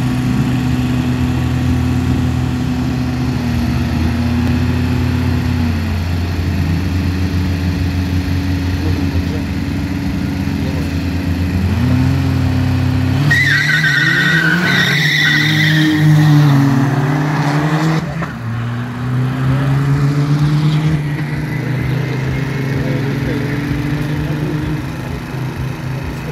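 Car engines idling at a drag-race start line, with occasional revs rising and falling. About halfway through, a loud high squeal over the engines, typical of tyres spinning at launch, then more revving as the engine note rises and falls.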